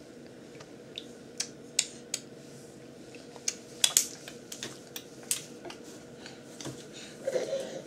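Scattered light taps and clicks, irregular and a second or so apart, from a baby crawling about on a vinyl floor among metal chair legs.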